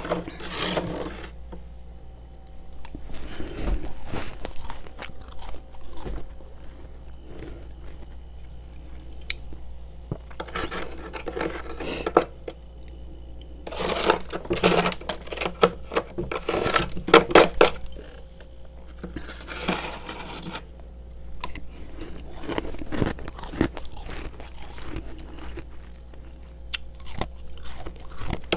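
Freezer frost crunching, scraped loose and chewed, in bursts of fast crackling separated by quieter pauses.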